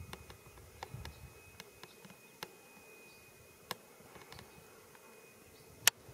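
Quiet outdoor ambience with a faint, steady, high-pitched insect buzz, broken by a few light clicks and one sharp click near the end.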